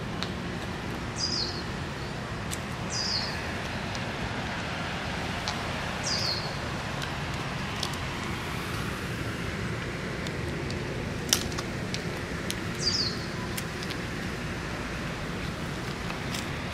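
Steady outdoor background noise with a bird giving a short high call that falls in pitch, four times. A single sharp click about eleven seconds in.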